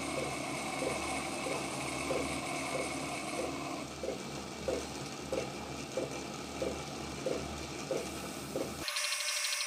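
Wood lathe running, its motor humming with a soft knock repeating about one and a half times a second. A little before the end the sound cuts abruptly to a thinner, steady hiss.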